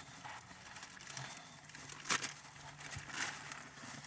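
Faint rustling of paper food wrapping being handled, with a sharp tap about two seconds in.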